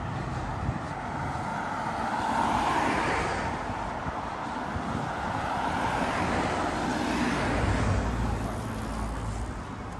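Road traffic: cars going by, the noise swelling as they pass about three seconds in and again near eight seconds.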